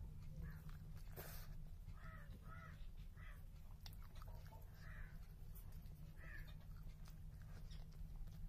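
A crow cawing about six times at irregular intervals, over soft chewing and mouth clicks from someone eating.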